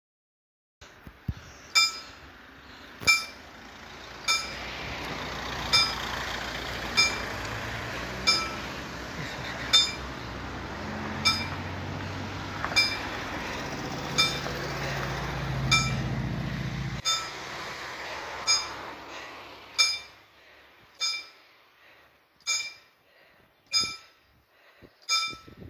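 Level-crossing warning bell striking a single ringing ding about every second and a quarter: the warning rung as the crossing closes for an approaching train, with the barrier arms lowering near the end. Through the middle, a vehicle engine grows louder as a van drives over the crossing, then fades after about 17 seconds.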